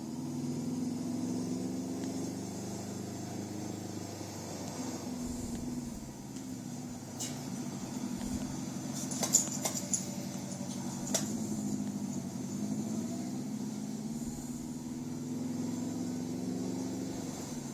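Subaru boxer engine running steadily with a low rumble, with a few brief sharp clicks around the middle.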